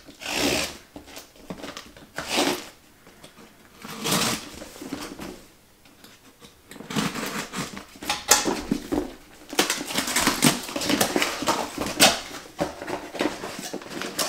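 A knife slitting the packing tape on a cardboard shipping box in three short strokes, then the box's cardboard flaps being pulled open and the box handled, with dense scraping and rustling from about halfway through.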